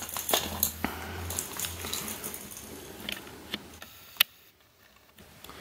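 Small clear plastic puzzle cubes handled and lifted out of their cardboard box: light plastic clicks and taps, with one sharp click about four seconds in.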